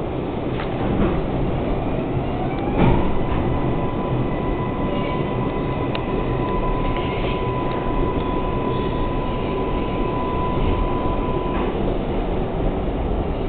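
R142A subway train running on the track, with rumble and rail noise. About three seconds in there is a knock, and a high tone glides up and then holds steady until it cuts off shortly before the end.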